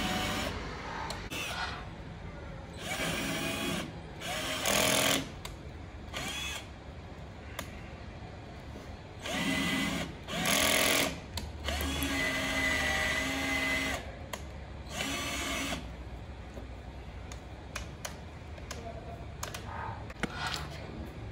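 Cordless drill boring holes in a car's rear spoiler, run in about seven short bursts of a second or two each. The motor whine rises and falls in pitch as it spins up and winds down, the longest run about two seconds just past the middle.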